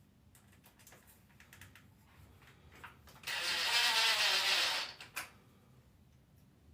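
A few light handling clicks, then a handheld power tool's motor runs for under two seconds and winds down with falling pitch, followed by a single sharp click.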